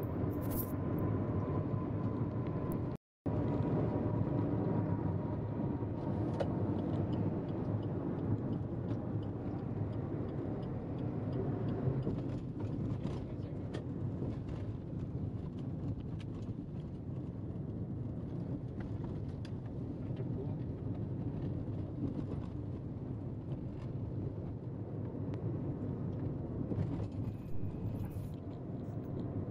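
Car driving along a concrete-paved toll road: steady tyre and road noise with engine hum. The sound drops out for a moment about three seconds in.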